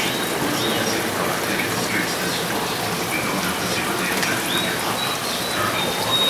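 Steady rush and trickle of aquarium water, the filter return splashing into the tank.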